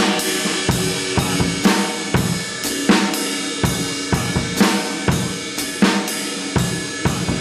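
Acoustic drum kit played solo: kick and snare hits roughly every half second under continuously ringing cymbals and hi-hat.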